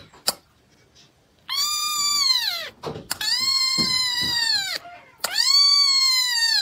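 Tiny kitten meowing: three long, high calls in a row, each rising a little and then falling away, with short pauses between them.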